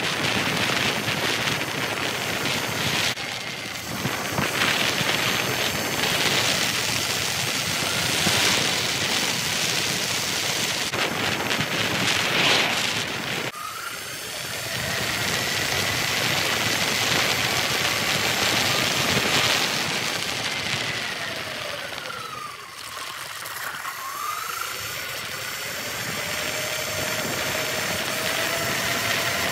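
Segway X260 electric dirt bike riding at road speed: steady wind buffeting on the microphone with tyre noise. In the second half, the electric motor's thin whine dips and rises in pitch as the bike slows and picks up speed again.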